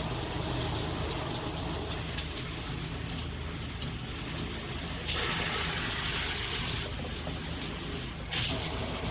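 SparkPod 10-mode handheld shower head spraying water in a steady hiss. The spray grows louder and brighter from about five seconds in, eases near seven seconds, then picks up again after eight.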